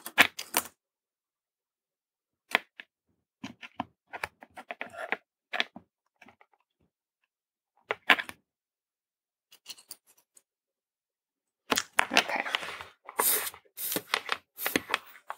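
Scattered sharp clicks and taps from a soldering iron and a small circuit board being handled, several seconds apart, then a denser run of clicking and rustling over the last few seconds.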